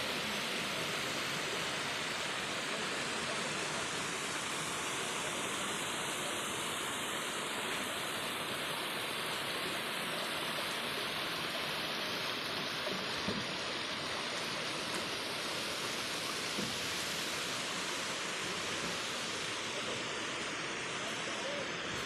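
Waterfall and stream rushing: a steady, even hiss of falling water.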